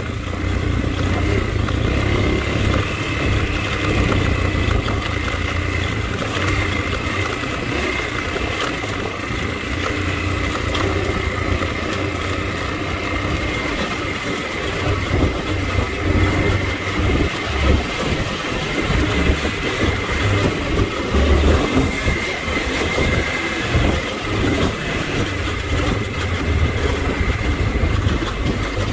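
Dirt bike being ridden along a rocky trail: its engine runs continuously under the steady noise of the bike jolting over rough ground.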